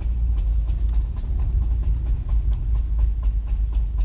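A regular run of light clicking thuds, about three to four a second, over low rumble from a 2010 Subaru WRX rolling slowly through a turn with the clutch in. The noise comes only at low speed and worsens with steering; the owner does not know its cause.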